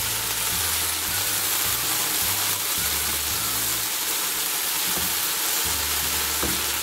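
Okra sizzling steadily as it fries in oil in a non-stick wok, stirred with a silicone spatula.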